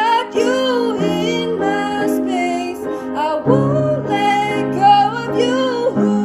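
A solo voice singing a sliding, held melodic line over sustained piano chords that change every second or two.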